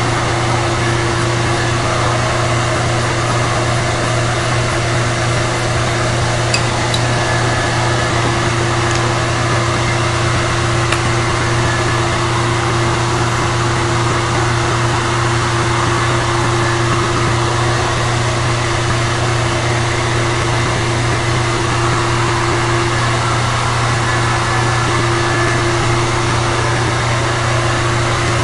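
A steady machine hum and hiss with a low drone and a steady higher tone, unchanging throughout, with a couple of faint ticks about a third of the way in.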